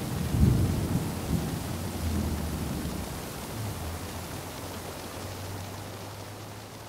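Thunder rumbling over a steady hiss of rain, loudest about half a second in and then dying away gradually.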